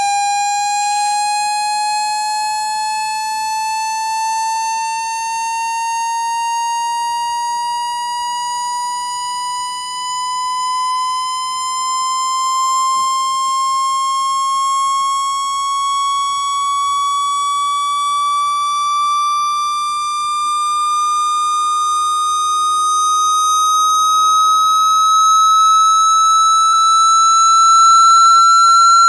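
Electronic frequency-sweep tone for ejecting water from a phone or earphone speaker, rising slowly and steadily in pitch like a drawn-out siren. It is meant to be played at full volume so that the vibrating speaker cone shakes out trapped water.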